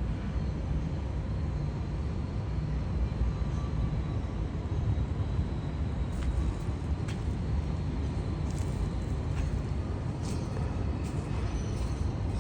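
Outdoor city-street ambience: a steady low rumble with no clear events, and a few faint light clicks in the second half.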